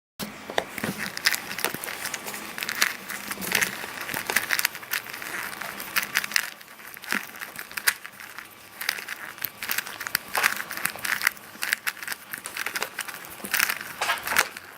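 Plastic Rubik's Cube being turned rapidly by hand: a dense, irregular run of clicks and clacks as its layers snap round.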